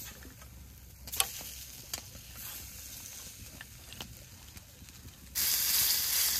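Food cooking over campfire coals: a low crackle with a few sharp clicks, then about five seconds in a loud sizzle starts suddenly.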